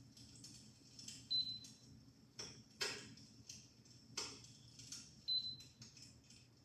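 PuraFlame Western electric fireplace insert playing its simulated log-fire crackling sound through its speaker: irregular pops and snaps over a faint low hum, with a brief high-pitched tone twice.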